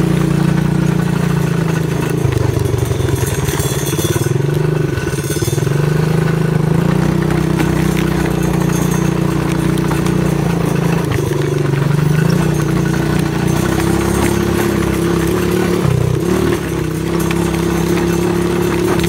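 A 110cc ATV engine running as the quad is ridden, its pitch rising and falling several times as the throttle is opened and eased off.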